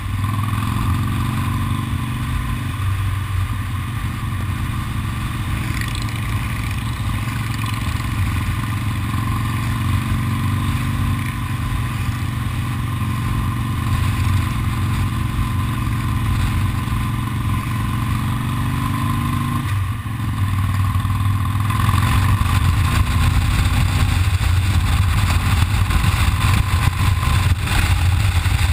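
Cruiser motorcycle engine running at low road speed, its pitch rising slowly and dropping back a few times as it accelerates and shifts gears. About three quarters of the way through a rushing noise joins in and the whole grows louder.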